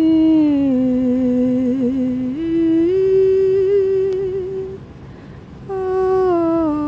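A voice humming a slow, wordless melody: long held notes that slide down or step up between pitches, with a pause about five seconds in.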